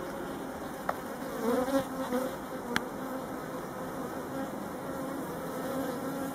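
Honeybees buzzing over an open Warré hive, a steady hum that swells and wavers briefly about one and a half seconds in. Two light clicks sound, about one and three seconds in.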